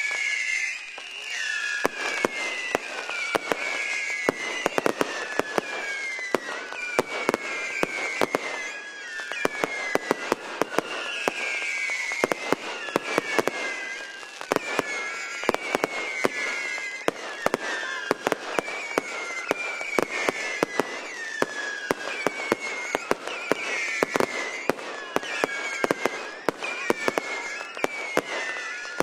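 Fireworks going off in a display: rapid sharp bangs and crackles throughout, with high whistles that dip in pitch about once a second.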